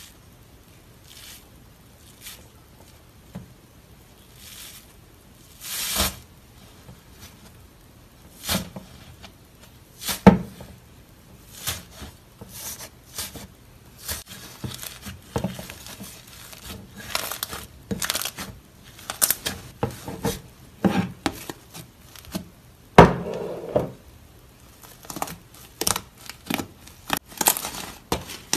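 Iceberg slime, its hardened top crust being pressed and broken up, crackling and crinkling irregularly with scattered sharp snaps, two of them louder about ten seconds in and near the end.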